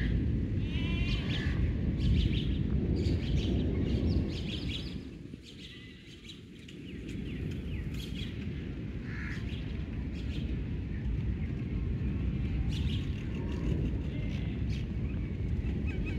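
Birds chirping and trilling repeatedly over a loud low rumble. The rumble fades for about two seconds some five seconds in, then returns.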